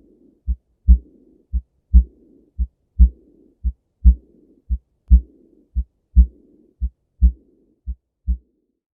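Heart sounds heard through a stethoscope: pairs of low thumps about once a second, with a murmur filling the pause after each louder second sound. This is the early diastolic murmur of aortic regurgitation, blood leaking back through the aortic valve. The beats stop near the end.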